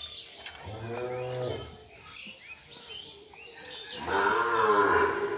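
Cattle mooing twice: a short moo about a second in, then a longer, louder moo near the end.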